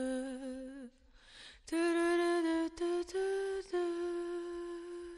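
A single unaccompanied voice humming a slow, wordless melody in long held notes, with a breath drawn about a second in. It trails off at the end.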